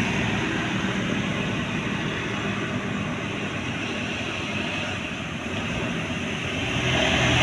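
Roadside traffic passing: a heavy vehicle's engine and tyre noise on the road, fading through the middle, then getting louder near the end as another heavy vehicle approaches.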